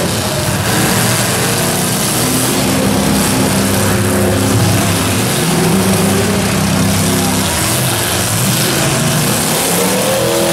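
Several demolition derby car engines running and revving together, loud and continuous, their pitches rising and falling out of step with one another.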